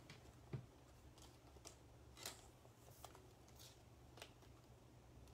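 Near silence: quiet room tone with a low hum and a few faint, scattered clicks.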